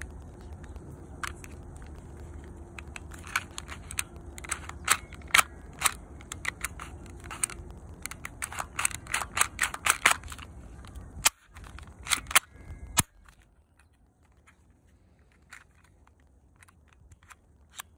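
Sharp mechanical clicks and snaps from a Dong San Browning Baby replica airsoft pistol being worked by hand, coming in irregular clusters, then only a few faint clicks from about thirteen seconds in.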